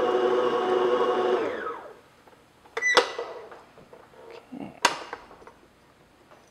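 Stand mixer motor running steadily, then switched off about a second and a half in, its pitch falling as it winds down. Then two sharp metallic clunks about two seconds apart, from the mixer head being raised and the batter-coated beater being handled, with a little scraping between them.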